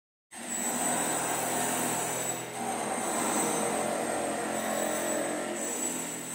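A steady mechanical drone, engine- or machinery-like, with a low hum under a hiss. It cuts in suddenly a moment in.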